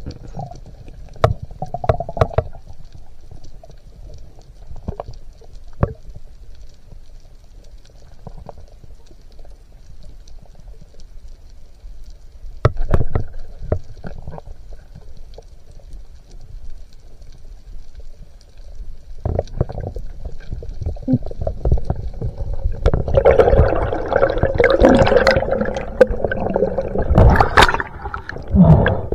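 Muffled underwater noise of water moving around a camera's waterproof housing: a low rumbling and gurgling with scattered knocks. It grows louder and busier over roughly the last ten seconds.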